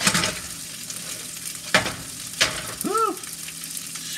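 Omelette eggs sizzling in a frying pan, a steady hiss broken by a few sharp clicks and knocks of the pan and spatula, with a short rising-and-falling tone about three seconds in.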